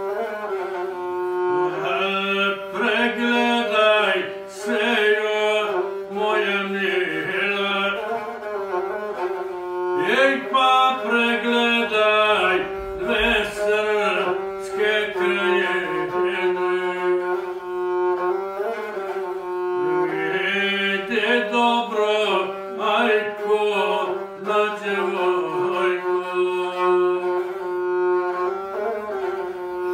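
Gusle, the single-string bowed folk fiddle, bowed continuously as accompaniment while a male guslar sings Montenegrin epic song along with it.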